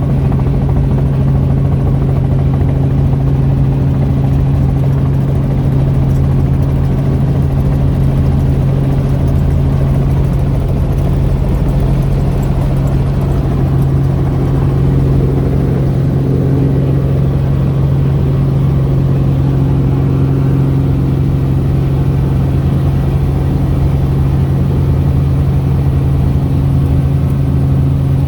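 Helicopter running in flight: a loud, unchanging drone of rotor and engine with a strong constant low hum.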